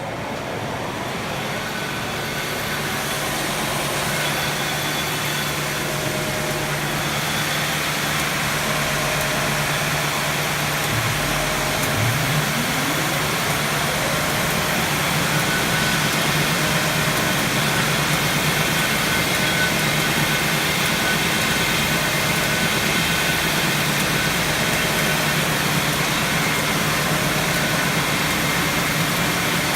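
Weber OFZ wide belt calibrating sander running: a steady industrial machine hum with motor tones that slowly grows louder, and a rising whine about twelve seconds in as a motor spins up.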